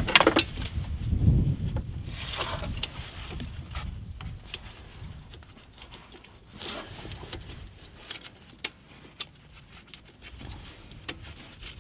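Light handling noise from a wheel speed sensor cable being routed and pressed into its plastic clips by a gloved hand: scattered small clicks and a few short rustles.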